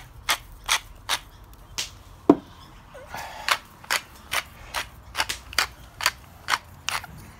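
Wooden salt and pepper mills being twisted, a steady run of sharp grinding clicks at about two or three a second. The clicks pause briefly around a single louder knock about two seconds in, then resume.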